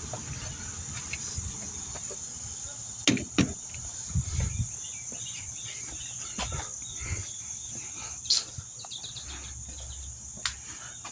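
Scattered sharp clicks and knocks of small parts and tools being handled, a second or more apart, over a steady high-pitched insect chirr.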